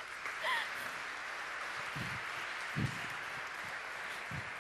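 Audience applauding steadily, with a few low thumps among the clapping.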